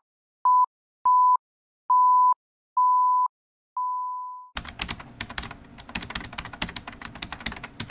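Five electronic beeps at one steady mid pitch, each longer than the last, the final one fading away; about halfway through they give way to a quick, uneven patter of computer-keyboard typing clicks.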